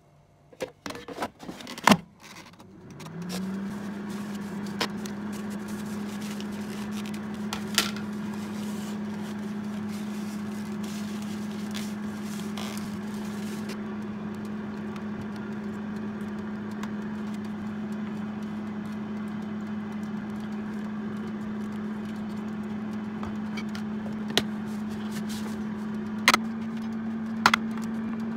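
Air fryer fan motor starting about three seconds in, rising briefly in pitch and then running with a steady hum. A few knocks and a loud clunk come just before it starts, and sharp clicks of containers being handled come near the end.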